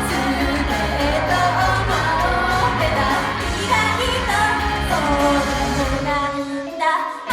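Japanese idol pop song performed live, with singing over a loud band backing track. Near the end the bass and beat cut out for a moment, then come back in.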